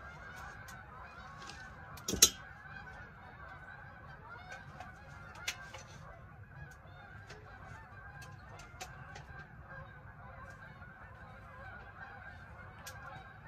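A flock of geese honking continuously, many calls overlapping. Scattered sharp clicks sound over it, with one loud knock about two seconds in.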